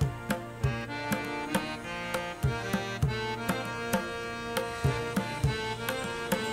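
Instrumental background music: a steady drum rhythm under a sustained melody.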